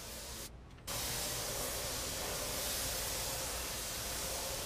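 Compressed-air paint spray gun hissing steadily as paint is sprayed. The hiss drops out briefly about half a second in, then resumes louder.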